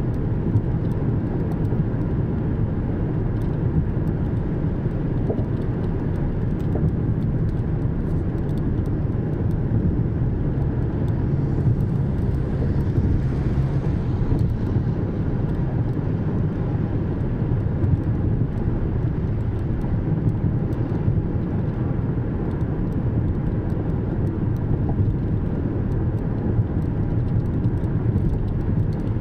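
Car driving along: a steady low rumble of engine and tyre noise, with a brief hiss swelling and fading about twelve seconds in.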